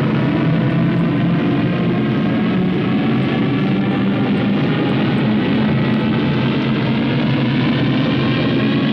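Science-fiction starship engines powering up from a full power start: a steady, dense drone of many tones that slowly rises in pitch.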